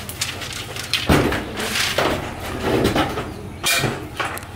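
Bamboo poles and corrugated tin sheeting clattering and scraping as they are handled while an old hut is taken down: several separate clatters and knocks.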